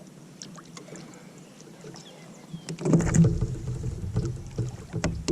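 Fighting a hooked bass from a kayak: a few light clicks, then from about three seconds in a loud low rumble with knocks as the angler works the fish and his gear against the kayak hull.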